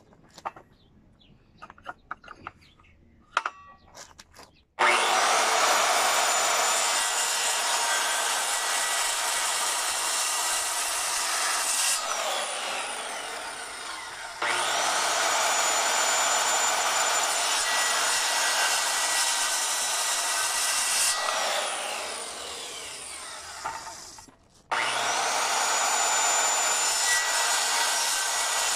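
Handheld electric circular saw making repeated cuts into a wooden stair stringer: after a few light knocks, it starts abruptly about five seconds in, cuts, then spins down, and starts and cuts twice more. These are side-by-side kerf cuts for a step's housing, to be chiselled out afterwards.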